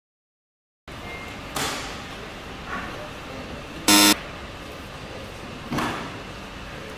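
About a second of silence, then a steady background hiss. About four seconds in comes a short, loud 'wrong answer' buzzer sound effect, and two softer swishes fall a couple of seconds before and after it.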